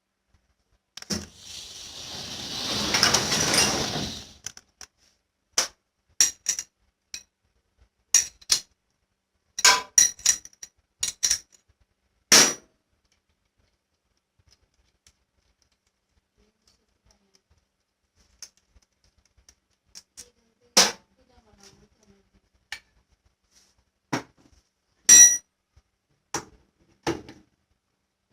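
Scattered sharp metal clinks and knocks, like hand tools and parts being handled on a machine, with a few seconds of rushing noise starting about a second in.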